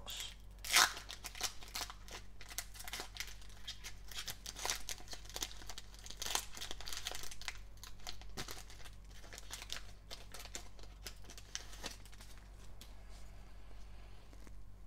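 Foil wrapper of a Panini Select trading-card pack crinkling and tearing as it is ripped open by hand, with the loudest rip about a second in. The crinkling thins to a quieter rustle near the end as the cards come out.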